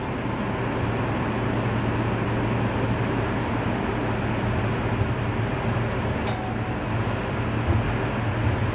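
Steady interior running noise of a CAF Urbos 1 low-floor tram: an even rumble with a low hum underneath, and a sharp click about six seconds in.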